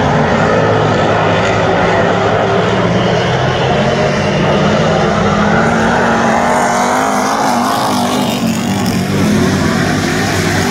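Several dirt-track race cars' engines running at speed around a dirt oval, the engine note climbing and then falling about halfway through as cars pass.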